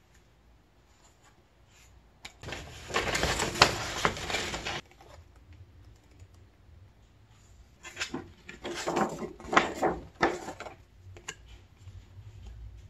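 Pages of a paper album photobook being handled and turned. A dense stretch of paper rustling comes about two to five seconds in, then a run of quick paper flicks and taps around eight to ten seconds in.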